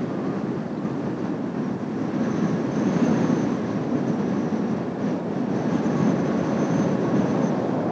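Kawasaki T-4 jet trainers' turbofan engines passing overhead as a steady rumbling jet noise, with a faint high whine above it that swells a little around the middle and again near the end.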